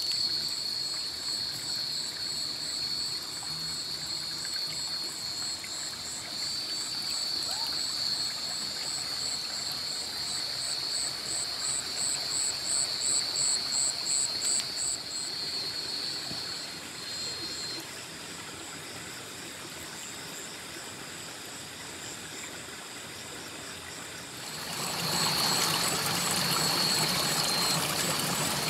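Small rocky stream running, with night insects calling over it: a steady high trill throughout and a rapid pulsing chirp that stops about fifteen seconds in. About twenty-five seconds in the rushing water becomes much louder.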